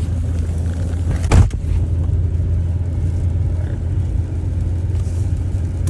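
Chevrolet Tahoe driving through deep snow, heard from inside the cabin: a steady low engine and road rumble. A single loud thump comes about a second and a half in.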